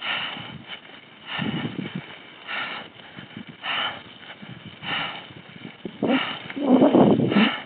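A cyclist breathing hard in a steady rhythm, about one breath a little over every second, while pedalling a heavily loaded bicycle slowly on a gravel climb; the breaths grow heavier near the end.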